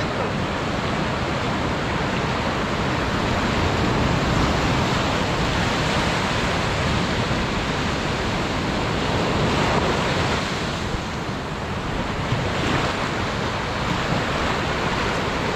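Ocean surf: waves breaking and washing up the sandy beach in a steady rush of foam.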